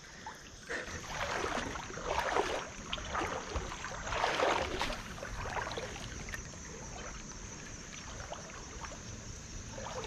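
Shallow creek water sloshing and swishing around a wader's legs in several surges over the first five seconds, then settling to a quieter steady trickle of the stream.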